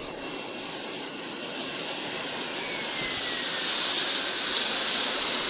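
Air blower of a vegetable bubble washing machine running and driving air through the water in its tank, making a steady rushing, churning hiss that grows slowly louder.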